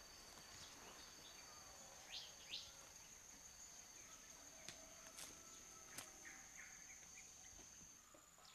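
Faint tropical forest ambience: a steady high-pitched insect drone, with two short bird chirps about two seconds in and a few soft clicks.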